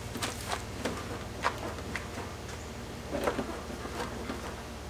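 BMW E30 front suspension being rocked by hand at the strut tower: light, irregular clicks and creaks from the strut mount and suspension, over a steady low buzz. No clear rattle or clunk is reproduced, so the rattle heard while driving does not show up in this test.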